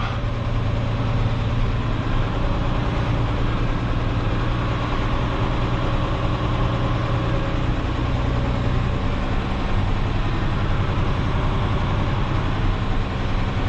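Truck engine running steadily as the truck drives uphill. Its hum drops a little in pitch about eight to ten seconds in.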